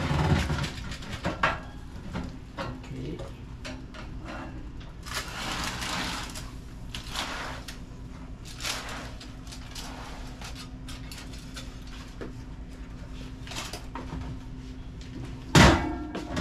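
Kitchen handling sounds at an oven: scattered clicks, knocks and short rustles over a steady hum, with a loud knock near the end.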